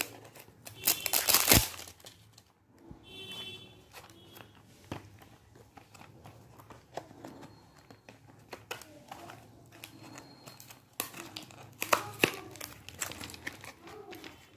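Lipstick box packaging being handled and opened by hand: crinkling, tearing and rustling of wrapping and cardboard. There is a loud burst about a second in and denser crinkling near the end as the box lid is opened.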